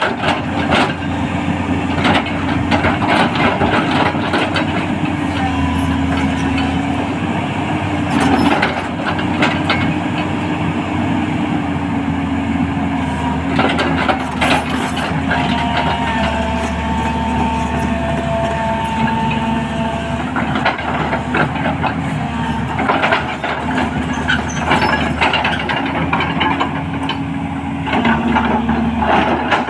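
210LC-class tracked excavator's diesel engine running steadily, its pitch stepping up and down as the hydraulics are worked, with scattered knocks and clanks from the machine.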